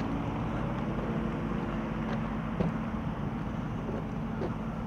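An engine running steadily under a low rumble, with a few light knocks, the clearest about two and a half seconds in.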